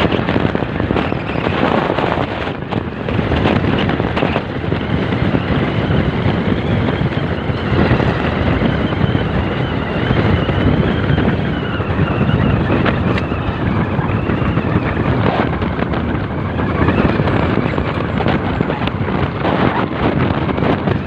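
Wind buffeting the microphone of a camera held above the roof of a moving car, over the car's engine and tyre noise at road speed.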